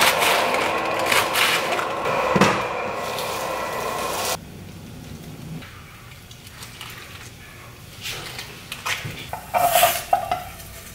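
Kitchen knife chopping lettuce on a cutting board, a run of knocks over a steady hum that cuts off suddenly about four seconds in. After a quieter stretch of knife work, a knife scrapes briefly in a frying pan near the end.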